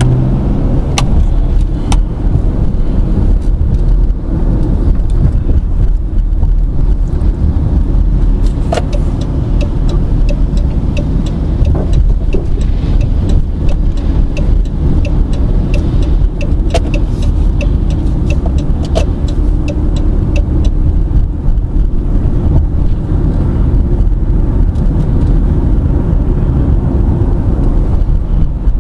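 Steady low rumble of a car driving, heard from inside the cabin, with scattered light clicks over it.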